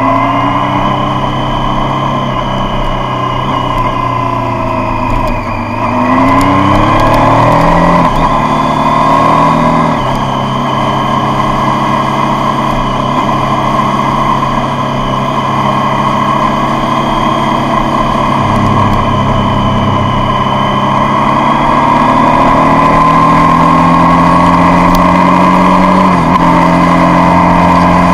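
Triumph Street Triple's three-cylinder engine heard on board while riding: it climbs in pitch under acceleration, drops sharply twice for gear changes about a quarter and a third of the way in, then runs at a steady cruise and rises gently again in the second half.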